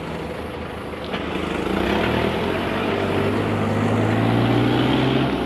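An engine running, getting louder from about two seconds in, its low hum slowly rising in pitch, then dropping off near the end.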